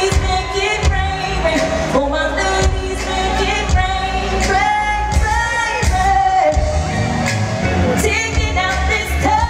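Live R&B performance: a female lead vocal sung into a handheld microphone, with held and gliding notes, over a band with bass and drums.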